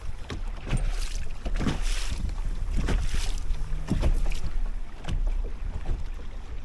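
Small waves slapping irregularly against a bass boat's hull, with wind rumbling on the microphone.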